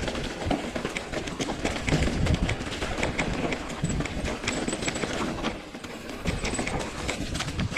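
Mountain bike rattling down a rough trail: rapid clatter and knocks from the frame and chain over the bumpy ground, with tyre noise underneath.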